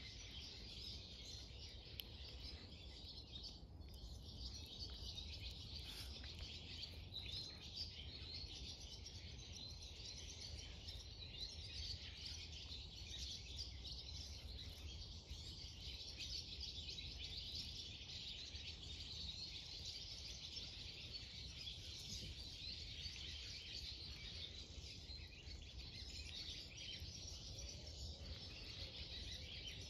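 Faint outdoor ambience: continuous high-pitched twittering of distant songbirds over a low, steady rumble.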